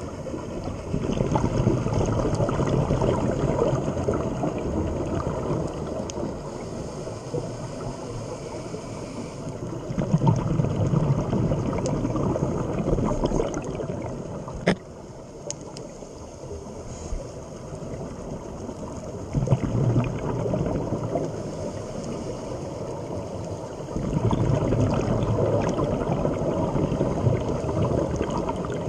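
Scuba regulator exhaust bubbles from a diver breathing underwater: four long bursts of low bubbling a few seconds each, with quieter spells between. A single sharp click near the middle.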